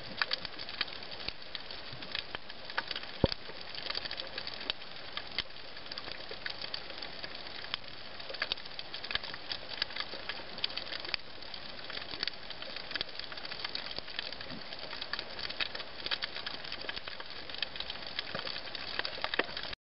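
Underwater coral-reef crackle: a dense, continuous patter of tiny clicks and pops from snapping shrimp, heard through the water. One sharper knock stands out about three seconds in.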